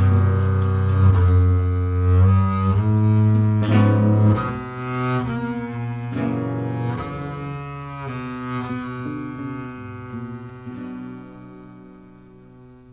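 Background music: a slow passage of low bowed strings playing long held notes, fading out near the end.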